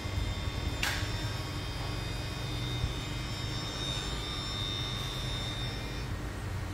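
A 7.5 hp electric induction motor running on a test run: a steady hum with a thin high whine that stops about six seconds in. A brief sharp click comes about a second in.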